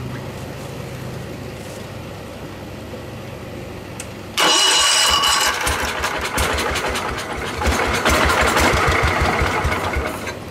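1974 John Deere 112's single-cylinder Kohler 301-series engine cranking over and catching about four seconds in, then running for several seconds with rapid, even firing before dropping off near the end. It now starts, with a spark plug that sparks and cleaned points.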